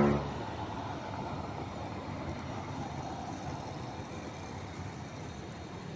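Steady street ambience: a continuous hum of road traffic, with no single vehicle standing out.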